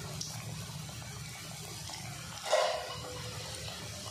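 Onion samosas deep-frying in hot oil, the oil sizzling and bubbling steadily, with one brief louder sound about two and a half seconds in.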